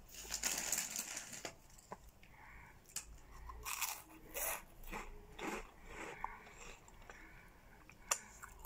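Mouth sounds of a person eating pizza: chewing and biting with crunches and wet mouth clicks in irregular bursts. A sharp smack near the end comes as she licks her fingers.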